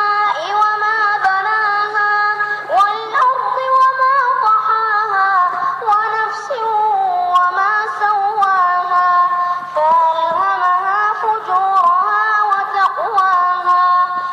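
A high voice reciting the Quran in a melodic chant, drawing out long notes that slide and waver in ornamented turns, with short breaks between phrases. A faint low steady hum lies beneath for the first half.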